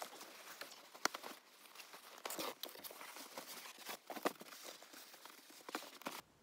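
A folding foam sleeping mat being handled and laid out inside a car: rustling and shuffling with scattered light knocks and clicks, a few of them sharper. The handling noise stops suddenly near the end.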